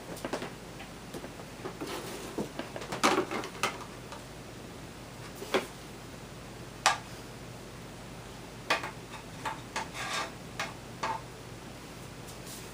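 Scattered light clicks and knocks of equipment and its cable being handled, in a few small clusters with short gaps between them.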